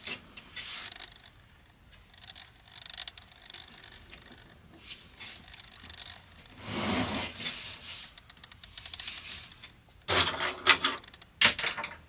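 Hands rubbing and pressing on the leather cover of a car front seat, with scattered scrapes and rustles, a longer louder rustle about seven seconds in, and a quick run of clicks and knocks near the end.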